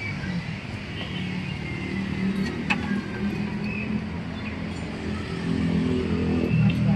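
A motor vehicle engine running close by, with a steady low hum that grows louder over the last couple of seconds. A single light clink comes about two and a half seconds in.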